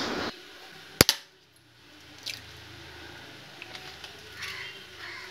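A hen's egg being cracked open over a glass bowl: one sharp double crack about a second in, then a few faint taps and clicks.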